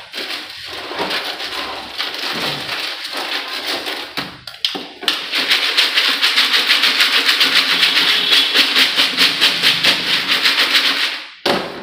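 Wooden cat-litter pellets in a plastic sifting tray, first stirred and raked by hand with an irregular rustling and scraping. About five seconds in, the tray is shaken rapidly back and forth, giving a quick, even rattle of pellets against the plastic. The shaking sifts the crumbled sawdust from urine-soaked pellets through into the tray below.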